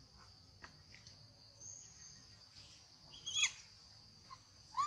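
Young long-tailed macaques playing. One gives a short, high squeal about three and a half seconds in and another near the end, over a steady high insect drone.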